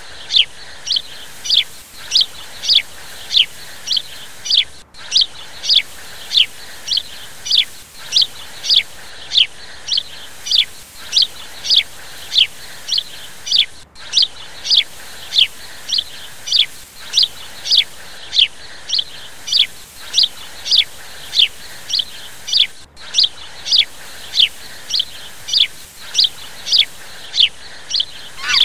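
A small bird's sharp, high chirp call, each note sweeping quickly downward, repeated very evenly a little over twice a second throughout.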